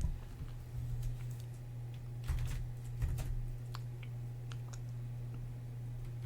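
A few irregular computer keyboard key presses over a steady low electrical hum.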